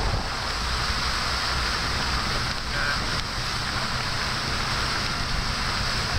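A motor boat under way: the steady low drone of its engine under a broad hiss of wind on the microphone and water rushing past the hull.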